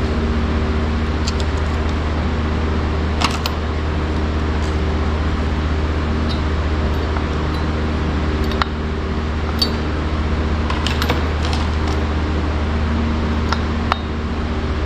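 Scattered small metallic clicks and clinks of hand tools working on an old Poulan chainsaw being taken apart, about eight in all, over a steady low mechanical hum.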